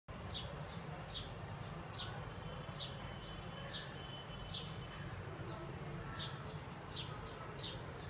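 A bulbul calling: a short, sharp, high note that falls in pitch, repeated about once a second, over a low steady background hum.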